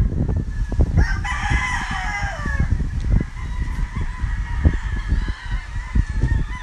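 Gamecocks crowing: one loud crow about a second in, falling in pitch at the end, with more crowing farther off. An uneven low rumble runs underneath.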